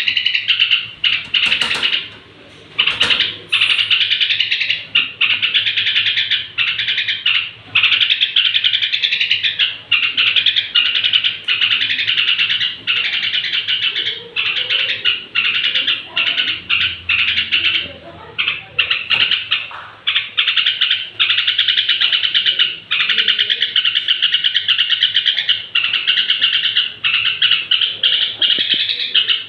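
Yellow-vented bulbul (trucukan) singing and chattering continuously, a dense stream of rapid high chirps in runs of a second or two with brief breaks between.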